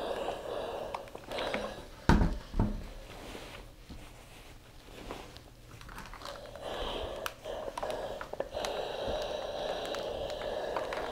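Steam iron sliding over cotton shirt fabric on a padded ironing board, a steady rustle. About two seconds in come two thumps as the iron is set down, then a quieter stretch while the fabric is smoothed by hand, and the rustle of pressing returns in the second half.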